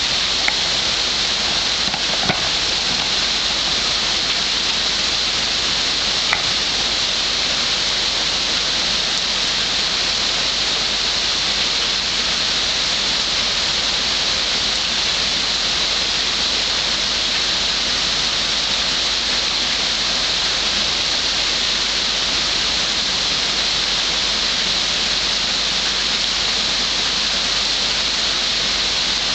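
Heavy rain falling steadily in a rainstorm: a dense, even hiss, with a few sharp ticks in the first several seconds.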